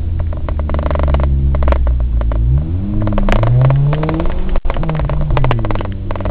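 Suzuki Samurai's engine revving hard off-road, its pitch climbing and falling with the throttle and gear changes, with rattles and knocks from the body bouncing over rough ground. The sound drops out for an instant past halfway.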